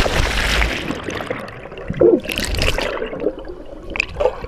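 A person splashing into a swimming pool, then splashing and bubbling water heard from under the surface, with a second loud splash about two seconds in.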